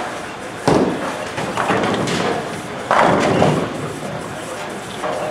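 Two sharp crashes of bowling balls hitting pins, about two seconds apart, each with a rattling tail as the pins scatter, over the steady rumble of balls rolling down the lanes.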